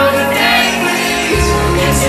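Live pop music played loud at a concert, with singing over it; a heavy bass comes in about one and a half seconds in.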